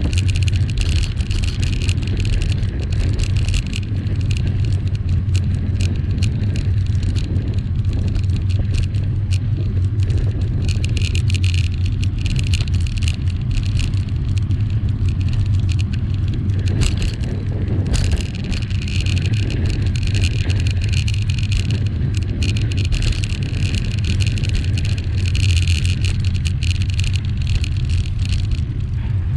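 Steady wind rumble on the microphone of a bicycle-mounted camera, mixed with tyre noise on the road while riding.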